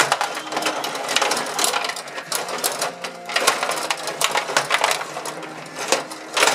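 Rod table hockey game in play: metal rods sliding and twisting, plastic players and puck clacking in an irregular run of sharp knocks and rattles.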